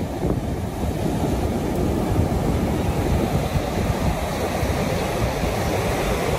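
Baltic Sea surf: waves breaking offshore and foam washing up onto a sandy beach, a steady rush of water.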